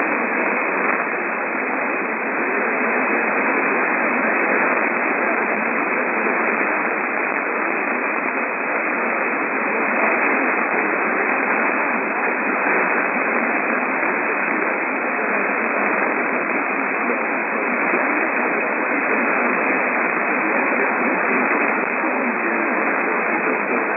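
Steady radio static: an even hiss from a receiver with no transmission coming through, cut off sharply above and below like a radio's narrow audio.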